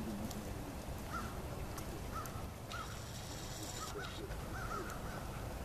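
Short animal calls repeating about once or twice a second over a steady outdoor rumble.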